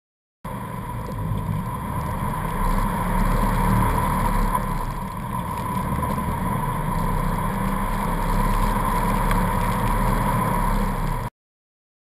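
Jeep Wrangler driving: a steady low engine rumble with road and wind noise and a steady whine over it. It starts abruptly about half a second in and cuts off abruptly near the end.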